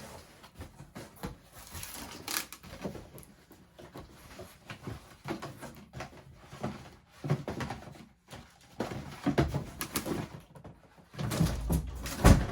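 Cardboard shipping box being opened and unpacked by hand: irregular rustling and scraping of cardboard and packing, with a few louder thumps near the end.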